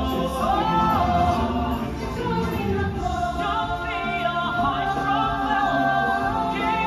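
Stage-musical song: voices singing long held notes over musical accompaniment.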